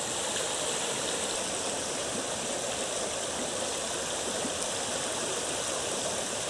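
Floodwater rushing steadily across a submerged road and spilling over its edge.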